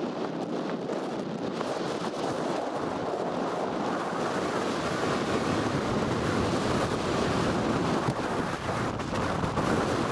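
Wind buffeting the microphone over the rumble of a vehicle driving fast across a rough field. It is a steady rushing noise that grows a little louder about halfway through.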